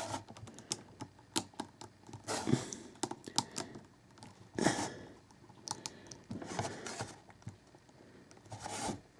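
Small plastic figure parts clicking and rubbing as they are handled and fitted onto a figure: irregular light clicks and short scrapes.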